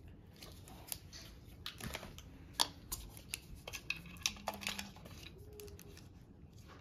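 Scattered small plastic clicks and taps from handling a camera battery and its charger, fitting the battery into the charger.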